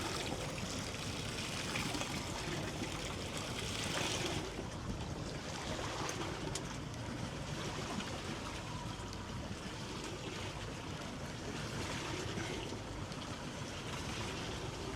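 Sea water lapping and splashing against the hull of a small fishing boat on choppy water: a steady wash of noise that turns less hissy about four seconds in.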